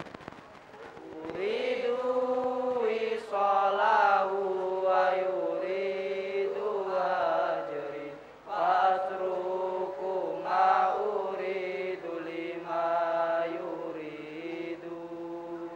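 A group of young men chanting Arabic verse in unison, a slow melodic recitation with long held notes and gliding pitch, broken by one short pause a little past halfway.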